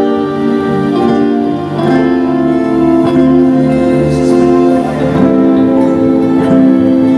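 Gospel worship band music: guitars under long held chords that change every second or two.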